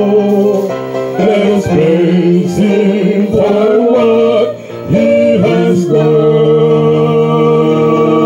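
A small group singing a gospel praise song into microphones over instrumental backing, the voices moving through a sung phrase and then holding one long note from about six seconds in.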